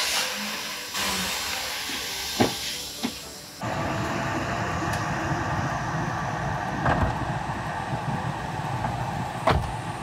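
Air-conditioning blower of a freshly recharged Nissan Serena blowing air out of the dashboard vents, heard inside the cabin as a steady rush that comes on strongly about three and a half seconds in. A couple of sharp clicks come shortly before it, and another near the end.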